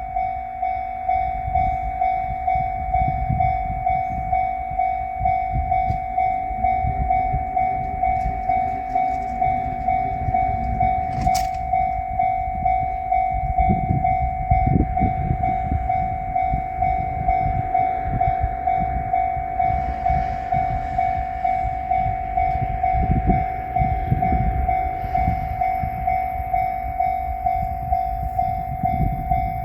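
Japanese level-crossing electronic warning bell ringing in its steady "kan-kan" beat, a little under two strikes a second, over uneven low rumbling. A single sharp click comes about eleven seconds in.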